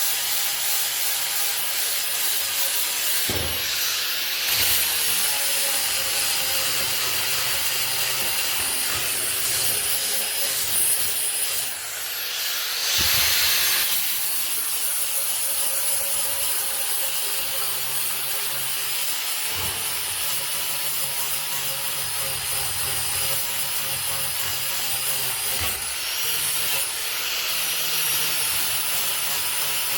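Angle grinder with a flap disc sanding an oak slab: a steady abrasive rasp over the motor's whine, which shifts in pitch several times as the disc works the wood.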